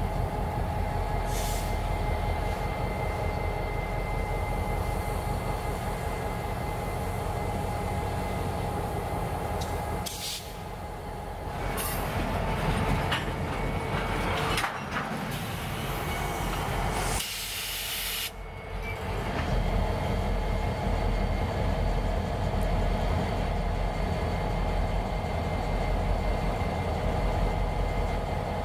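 EMD SD50-2 diesel locomotive running as it moves a cut of freight cars through a switching yard, with the steady rumble of the rolling cars. A loud hiss sounds for a few seconds about halfway through, with shorter hisses before it.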